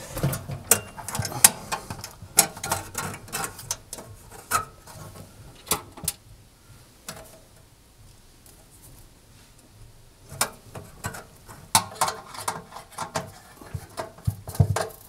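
Screwdriver and small metal clips clicking and tapping against the steel oven cavity as the clips holding the thermostat capillary are screwed into place. The clicks come irregularly, with a quieter stretch in the middle.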